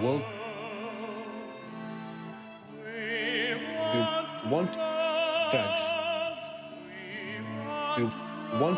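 Operatic singing with wide vibrato on long held notes, with several quick upward slides, over a sustained low instrumental accompaniment.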